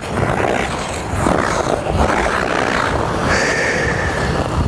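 Figure skate blades scraping and gliding across the ice, over a steady low rumble, with a brief thin high tone about three seconds in.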